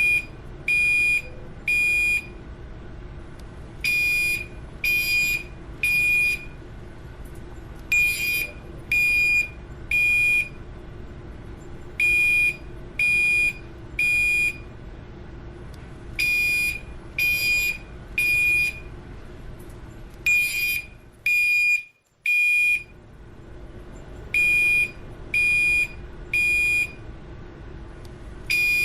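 Building fire alarm sounding in the temporal-three pattern: repeating groups of three high-pitched beeps about a second apart, with a longer pause between groups. This is the standard evacuation signal.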